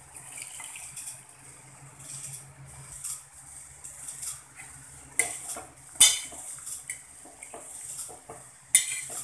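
Hot water poured from a cup into a stainless steel pot of chicken curry, then a long metal spatula stirring and scraping in the pot, with sharp metal clanks against the steel in the second half.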